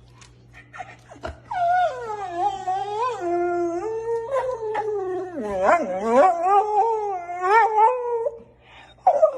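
Samoyed howling: one long, wavering howl that rises and falls in pitch, starting about a second and a half in and breaking off near the end, then a second howl begins just before the end.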